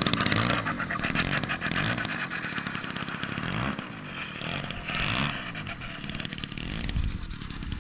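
Gasoline-converted Super Tigre 4500 single-cylinder two-stroke engine of a large RC aerobatic plane, turning a 22x8 propeller as it taxis along the runway. The engine speed rises and falls in pitch several times, louder at first and then settling lower.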